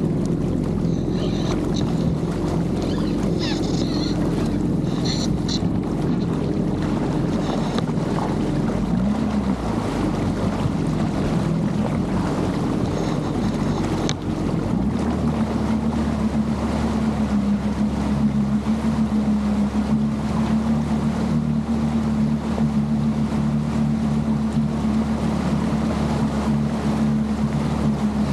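Yamaha jet ski engine running under way, with water rushing past and wind buffeting the microphone. About halfway through the engine note rises and then holds steady at a higher pitch.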